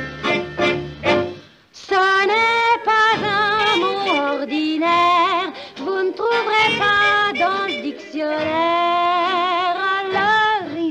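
A woman singing a cabaret song with musical accompaniment: a few short accented chords near the start, then long held notes with a wide vibrato from about two seconds in.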